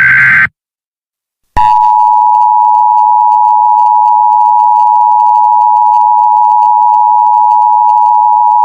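Emergency Alert System signal: the last of the SAME header's harsh digital data bursts ends about half a second in. About a second and a half in, the steady two-tone EAS attention signal starts and holds loud and unchanging.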